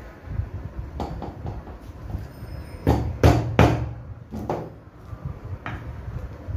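A hammer knocking the nails of small plastic cable clips into a wooden strip: a few light taps, then three loud strikes in quick succession about three seconds in, then a couple more lighter knocks.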